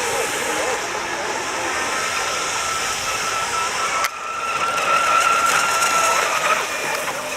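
Radio-controlled racing boats running: a steady high-pitched motor whine over a constant noisy rush, with a short sudden drop in level about four seconds in.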